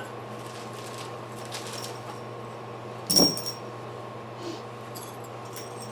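A single sharp metallic clink about three seconds in, with a brief high ring: the swing's metal hardware knocking together during assembly. A steady low hum runs underneath.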